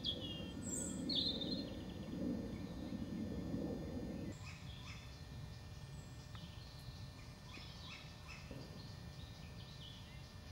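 Woodland birdsong: many short high chirps and trills from small birds. For the first four seconds a low rushing noise lies over it with a few high falling calls, then it cuts off abruptly, leaving the birdsong alone.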